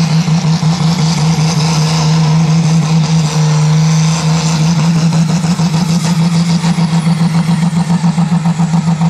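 Diesel engine of a Super Sport class pulling tractor running flat out under load as it drags a weight-transfer sled. The engine note holds steady and loud, then starts to pulse rapidly about halfway through.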